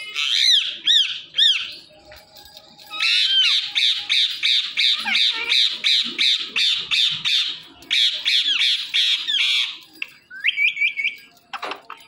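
Indian ringneck parakeet screeching: three loud arched calls, then a long run of rapid harsh screeches at about four a second lasting some seven seconds, and a few short calls near the end.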